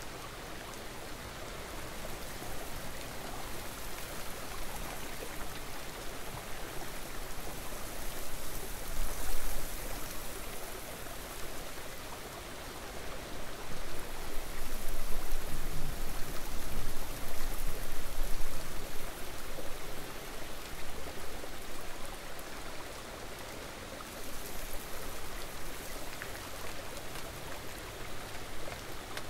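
Steady rushing hiss of a nearby river flowing. Gusts of wind rumble on the microphone about nine seconds in and again from about fourteen to nineteen seconds in.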